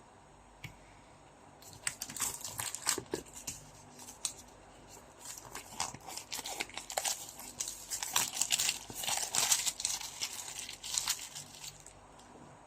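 Plastic wrapping on a trading card box crinkling and tearing as it is unwrapped by hand, a dense run of sharp crackles that starts about two seconds in and stops shortly before the end.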